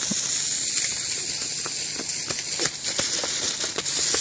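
A lit firework hissing steadily as it burns, with scattered small crackles through the hiss.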